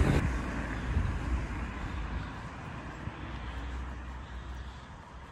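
Car driving past on a wet road, the noise of its tyres and engine fading away steadily as it leaves.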